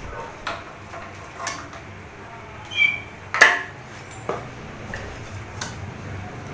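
Clinks and knocks from an air-conditioner fan motor assembly being handled and turned over, as its metal and plastic parts knock against each other and the bench. There is a scattered series of short knocks, the loudest about three and a half seconds in, with a brief ringing clink just before it.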